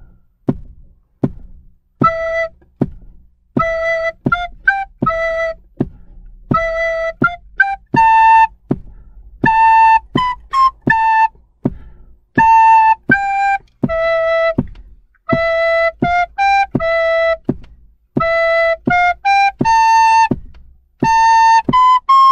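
Two soprano recorders in turn playing a simple stepwise melody (mi, mi-fa-sol-mi, mi-fa-sol-la, la-si-do-la, la-sol): one recorder plays the phrase and the other then repeats it. Even clicks keep the beat throughout, alone for the first two seconds as a count-in.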